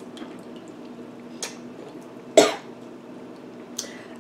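A woman coughs once, short and sudden, a little over two seconds in, with a few faint mouth clicks before and after it over a steady low background hum.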